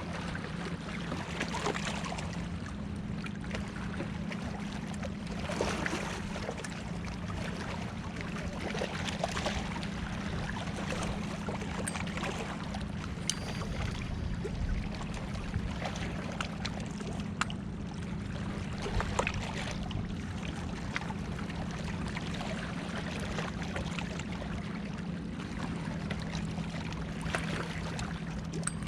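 Choppy lake water lapping and splashing, over a steady low hum, with a few faint clicks.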